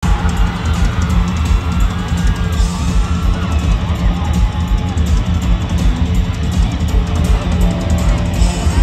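Live rock band playing loud, with electric guitar and a pounding drum kit, heard from within the audience.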